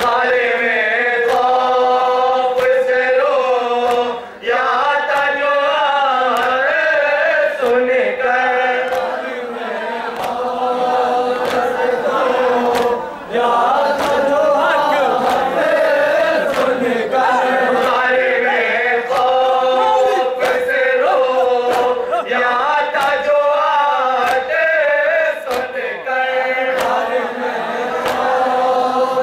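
A men's group chanting a nauha, a Shia mourning lament, in unison at microphones behind a lead reciter. Sharp strikes keep a beat about once a second.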